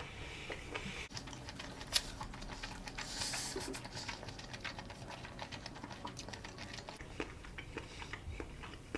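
Close-up chewing of masago (smelt roe) nigiri: a quiet run of small wet clicks and ticks from the mouth, with one sharper click about two seconds in.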